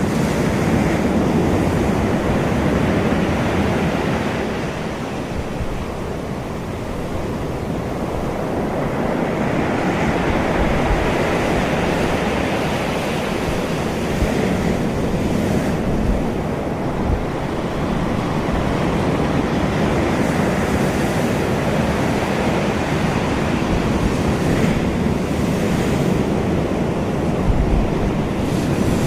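Heavy ocean surf after a hurricane, waves breaking and rushing in without pause, the roar swelling and easing over several seconds. Wind hits the microphone with a few low thuds.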